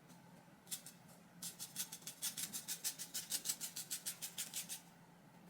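Hair-cutting shears snipping through wig hair: one snip under a second in, then a quick, even run of snips, about six a second, from about a second and a half until nearly five seconds in.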